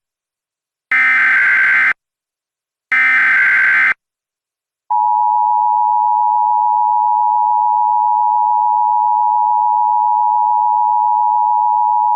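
Emergency Alert System broadcast: the last two of the three SAME digital header bursts, harsh screeching data tones about a second long each and a second apart, then about five seconds in the steady two-tone EAS attention signal (853 and 960 Hz) starts and holds.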